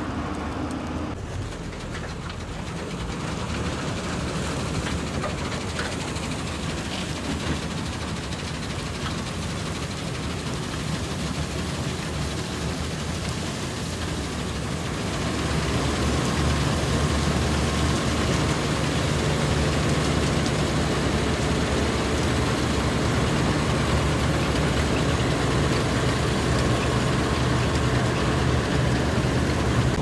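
New Holland Clayson combine harvester running steadily as it cuts and threshes wheat, its diesel engine and machinery making a continuous drone. It gets louder about halfway through as the machine comes close.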